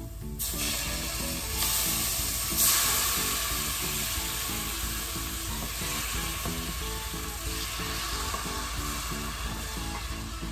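Coconut milk sizzling as it hits hot red curry paste in a pot. The sizzle starts about half a second in, surges near the three-second mark, then keeps on and slowly dies down. Background music with a regular beat plays underneath.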